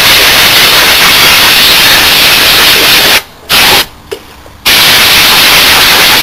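Compressed-air blow gun blasting dust out of an electrical chassis, a loud hiss: one long blast that stops about three seconds in, a short burst just after, and another blast from about four and a half seconds on.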